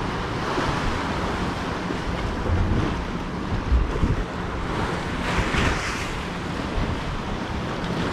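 Wind buffeting the microphone over sea surf washing against rocks, with a louder rush of water about five seconds in.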